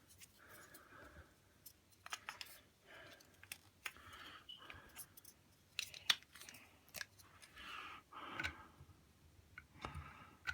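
Small plastic toy pieces and their packaging being handled: scattered sharp clicks and knocks with short bursts of rustling throughout.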